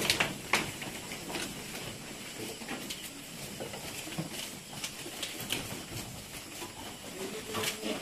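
Goats feeding on fresh Napier grass and leafy forage hung up in the pen: scattered sharp snaps and rustles of stalks and leaves as they pull at it.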